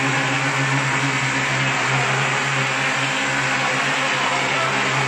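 Mortar spraying machine running: a steady motor hum under the even hiss of compressed air driving mortar out of the spray gun.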